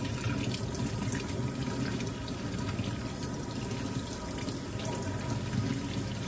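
Kitchen faucet running steadily into the sink, water splashing over a small toy held under the stream.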